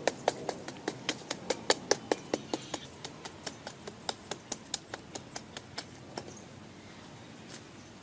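A rapid, even series of light, sharp taps, about five a second, that thins out and fades after about six seconds.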